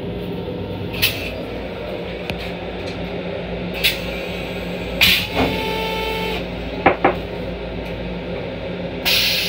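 Long Island Rail Road M7 railcar toilet going through its flush cycle: sharp clicks, a brief whine around the middle, and a sudden rush of hiss near the end. All of it sits over a steady low hum.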